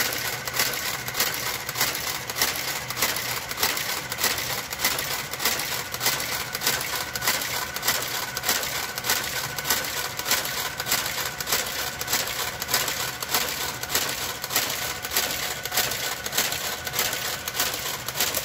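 Brother KG-93E motorised garter carriage knitting its way across the needle bed of a Brother electronic knitting machine, making a steady, even clicking of several clicks a second as it works stitch by stitch.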